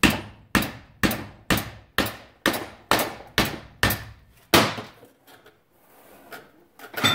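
Hand hammer striking the end of a Velvet Drive 1017-004 marine transmission's shaft. There are about ten sharp blows at roughly two a second, each ringing briefly, then the blows stop about four and a half seconds in and a few light taps follow.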